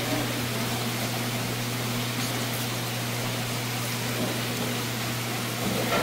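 Live-seafood holding tanks: water running and aerating in a steady hiss over the constant low hum of their circulation pumps.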